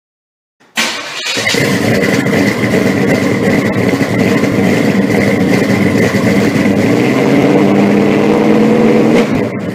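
A vehicle engine running loudly and steadily, starting suddenly under a second in and cutting off sharply at the end.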